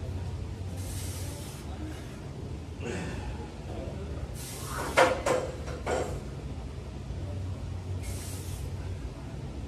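Barbell clinking and knocking during slow deadlift-style reps: one sharp clink about halfway, then two lighter knocks, with a few short hissing sounds, over a steady low hum.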